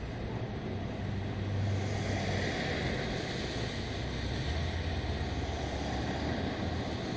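Steady outdoor ambience: an even hiss over a low rumble that swells twice.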